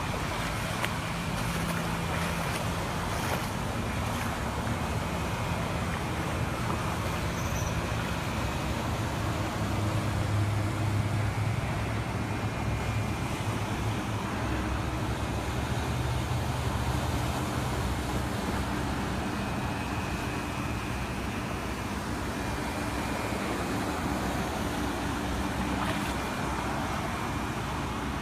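Steady motor-vehicle engine and road noise, with a low engine hum that shifts in pitch now and then and swells a little about ten seconds in.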